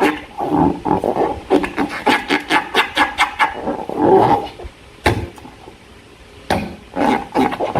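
Slime being squeezed and worked by hand, making rapid wet clicking and squelching sounds in bursts, with a short pause about halfway through that is broken by a single sharp click.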